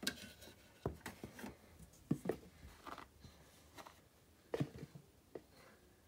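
A hand rummaging in a toy washing machine's plastic drum: scattered light plastic knocks and clicks with some rubbing, in small clusters about one, two and four and a half seconds in.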